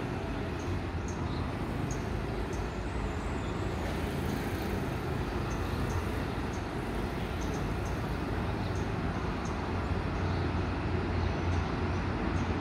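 Low rumble of an approaching THN-class diesel multiple unit, distant at first and growing louder over the last few seconds.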